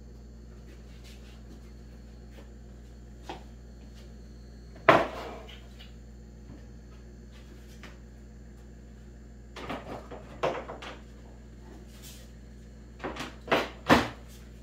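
Wooden knocks and thuds as a large wooden sheet is set down and slid into place on a wooden table frame: one loud thud about five seconds in, a cluster of knocks around ten seconds, and several sharp knocks near the end, over a steady low hum.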